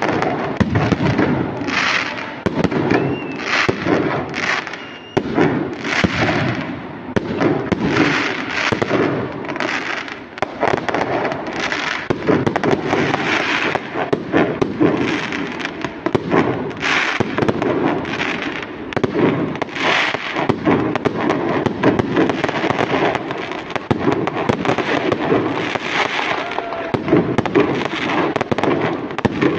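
Fireworks going off in a dense, continuous barrage of overlapping bangs and crackles, with no pause.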